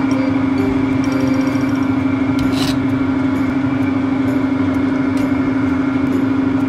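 Steady machine hum at one low pitch, unchanging throughout, with a few faint clicks and a short scrape about two and a half seconds in.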